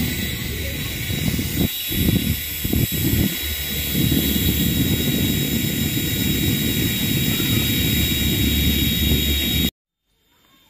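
Mini toy helicopter in flight: the steady high whine and hiss of its small electric rotor motors, over an irregular low rumble. The sound cuts off suddenly near the end.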